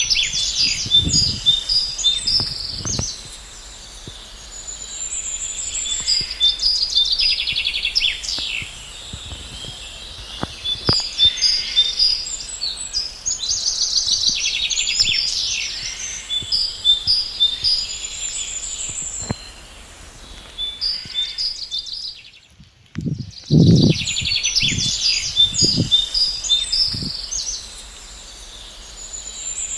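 Several birds chirping and singing in quick trilled phrases that keep repeating. About two-thirds of the way in the sound drops out briefly, then a few low thumps follow before the chirping resumes.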